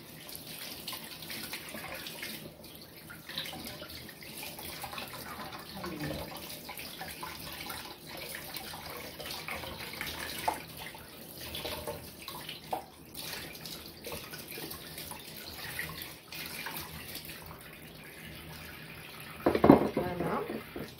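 Kitchen tap running steadily into a sink as a red mullet is rinsed under it, with small scattered knocks from handling the fish. A brief louder knock comes near the end.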